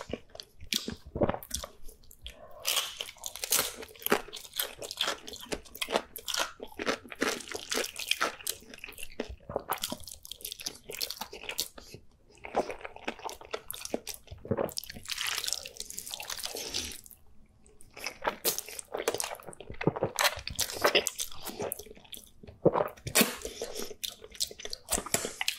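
A person eating thick noodles and cheese-sauced dumplings by hand: wet slurping, chewing and lip smacking in an irregular run of short clicks and smacks.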